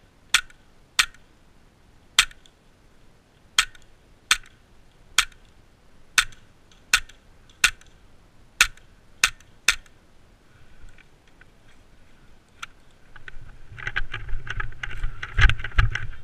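Airsoft pistol firing about a dozen single shots, sharp cracks spaced irregularly half a second to a second and a half apart. Near the end come a couple of seconds of rustling, knocking movement noise.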